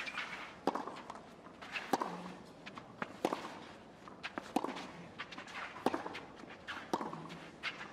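Tennis rally on a clay court: racquets strike the ball back and forth, a sharp hit about every 1.3 seconds, with softer bounces and shoe scuffs on the clay in between.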